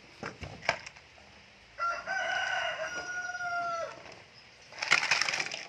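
A rooster crowing once: a long held call of about two seconds that drops in pitch at its end. A few light clicks come before it, and a short, loud clattering burst follows near the end.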